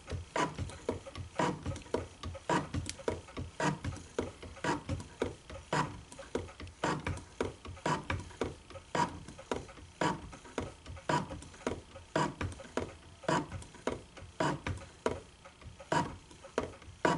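Shop-built hand shaper cutting a key slot in a 1018 steel block: the ram is worked back and forth by hand, and each stroke of the tool bit across the steel gives a click and scrape, a couple of times a second in an even rhythm.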